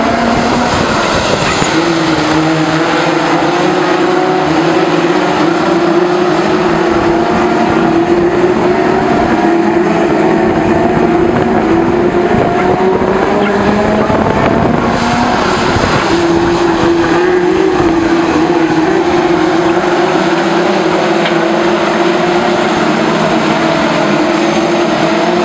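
A pack of BriSCA F2 stock cars racing, several engines running hard at once, their pitch rising and falling in overlapping sweeps as the cars lift off into the bends and accelerate out along the straights.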